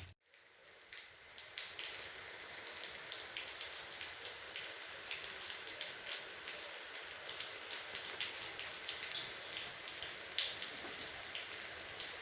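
Rain falling steadily, an even hiss with the patter of many individual drops. It comes in after a brief dropout at the very start.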